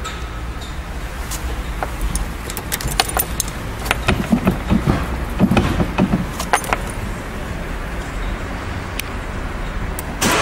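Car ignition key and its dangling metal keyring jangling and clicking at the steering column, a cluster of small rattles over a low steady rumble.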